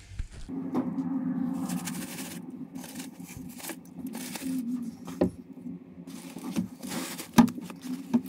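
Cardboard egg flats and wood-shaving bedding being handled: scraping and rustling with scattered knocks and clicks, the sharpest knock about seven seconds in, over a steady low hum.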